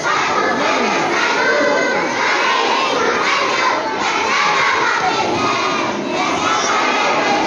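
A large group of young children shouting together in chorus, loud and continuous.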